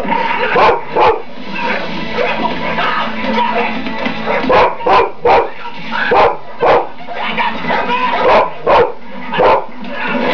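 A dog giving short, sharp barks, two near the start and a quick run of about ten from about four seconds in, over a film soundtrack with music playing.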